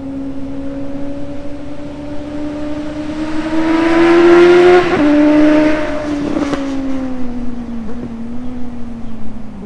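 A 2020 Suzuki GSX-S750Z's inline-four engine, breathing through a Yoshimura AT2 slip-on exhaust, accelerating past with rising pitch and loudness. Its pitch drops suddenly about five seconds in, then it fades with falling pitch.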